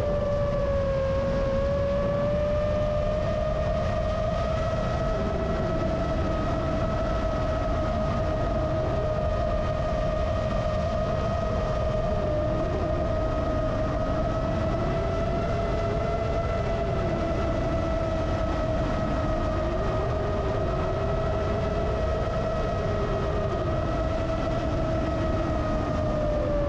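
FPV quadcopter's brushless motors whining in flight, recorded on board, over a steady rush of wind. One steady pitch holds throughout, while a lower pitch rises and falls every couple of seconds as the throttle shifts.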